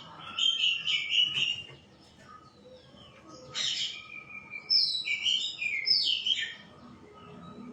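Shama singing: a quick run of varied notes, a pause of about two seconds, then a longer phrase of clear whistled notes that slide up and down.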